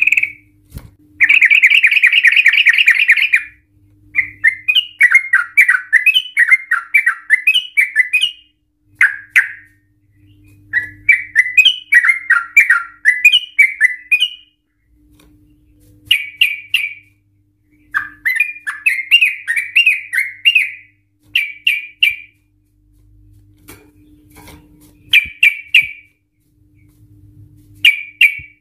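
Yellow-vented bulbul singing excitedly. About a second in it gives one long rapid trill, then bouts of bubbly, chattering phrases separated by short pauses.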